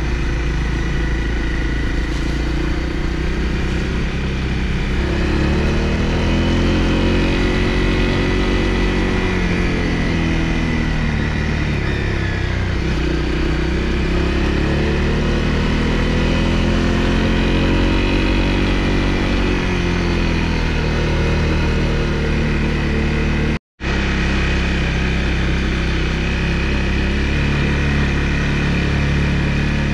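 Honda CRF250L's single-cylinder four-stroke engine running while riding, its revs climbing and falling twice, over a steady low rumble. The sound cuts out for an instant late on.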